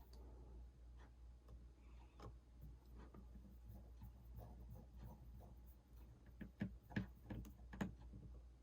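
Faint small clicks and taps of tools and parts being handled on an opened iPhone 6 during reassembly, with a few sharper clicks near the end.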